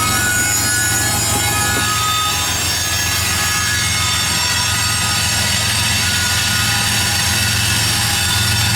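Freight train cars rolling past steadily with a continuous rumble and low hum, with a few thin high wheel squeals in the first two seconds that fade away.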